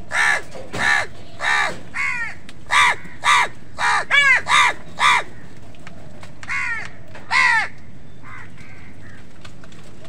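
House crows cawing: a quick run of about ten harsh caws over five seconds, then two more and a faint last one, spaced further apart.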